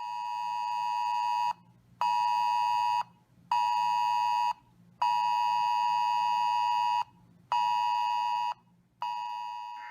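Wireless Emergency Alert attention tone: a steady two-pitched alarm tone around 900 Hz sounding in a repeating long-short-short cadence, one two-second tone then two one-second tones, each separated by half-second gaps.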